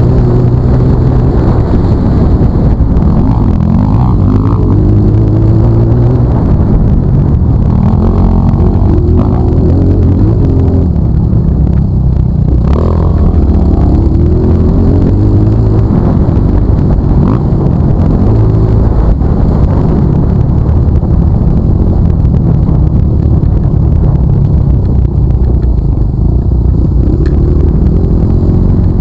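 Dirt bike engine running hard on an off-road track, its pitch rising and falling as the throttle is opened and closed through the turns. Loud throughout, close to the engine.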